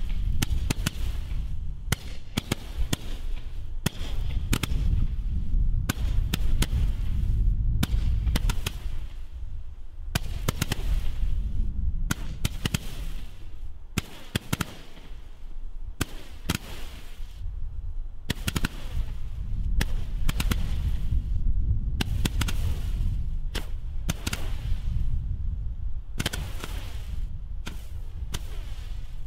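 Weco Magical Shots 30-shot Roman candle firing its coloured stars one after another: an irregular run of sharp launch pops over a steady low rumble.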